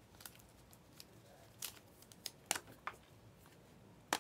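Trading cards being handled and flipped through by hand, giving a series of short, sharp, irregularly spaced clicks and snaps as the cards slide and knock against the stack. The loudest snap comes near the end.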